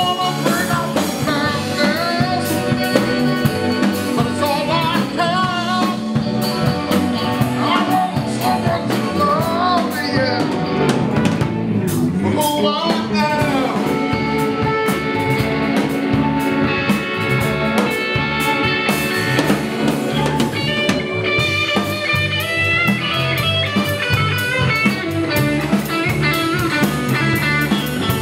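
A live band playing with electric guitar, keyboard and drum kit.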